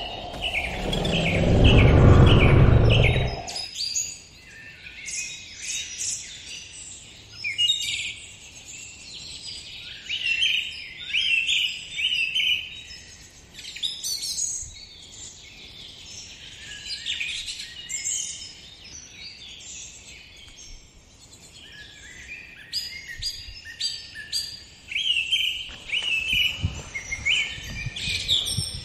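Small birds chirping and singing in many quick, overlapping calls and trills. A loud, deep rumble fills about the first three seconds and then cuts off.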